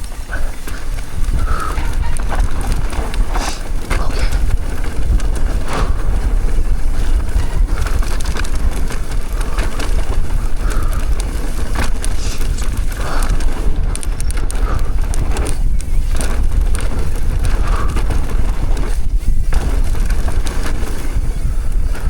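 A downhill mountain bike descending fast on loose, dry dirt: a steady, heavy rumble of wind on the microphone and tyres on the trail, with frequent clicks and knocks from the bike rattling over bumps.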